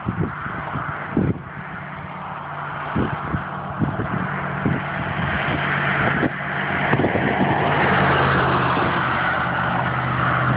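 A road vehicle approaches and passes, its tyre and engine noise building to a peak about eight seconds in and then easing. Strong wind buffets the microphone throughout with repeated low thumps.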